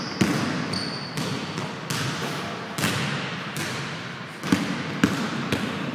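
Basketball dribbled hard on a hardwood gym floor: about eight sharp, unevenly spaced bounces. A short high sneaker squeak on the court comes about a second in.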